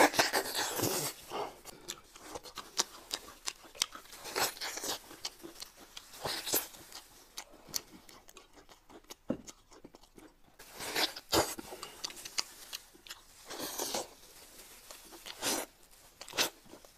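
Close-miked eating sounds: irregular wet chewing and biting as braised meat is gnawed off the bone, with soup being spooned and sipped.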